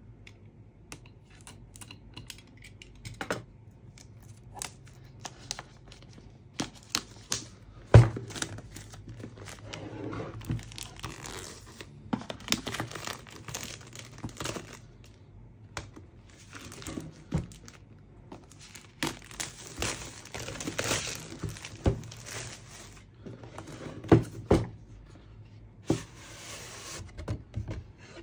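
Packaging being handled: bursts of crinkling and rustling, with scattered clicks and knocks. The sharpest knock is about eight seconds in.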